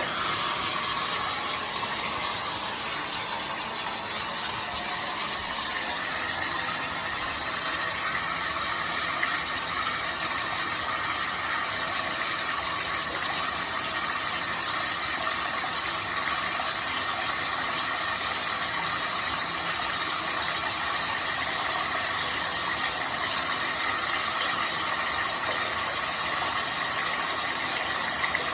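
Bathtub faucet turned on, water running steadily into the tub; it starts abruptly and holds an even rushing noise throughout.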